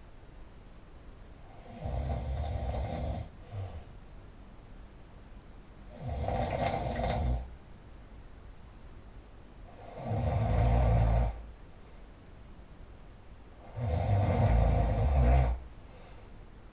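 A person snoring loudly in a steady rhythm: four long snores about four seconds apart, each lasting about a second and a half.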